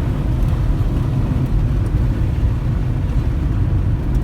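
Steady low rumble of a car on the move, road and engine noise heard from inside the vehicle.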